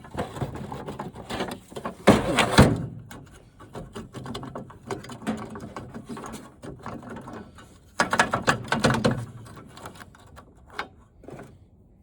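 Power drill run in short bursts on a stuck screw, the bit grinding against it, with clicks of handling between. The loudest bursts come about two seconds in and about eight seconds in.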